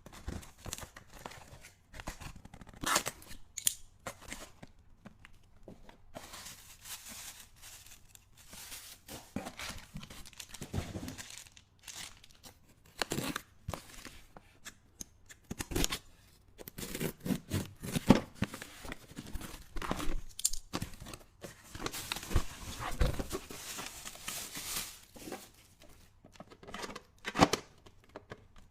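Packaging being opened and handled: tearing and crinkling, with irregular clicks and taps.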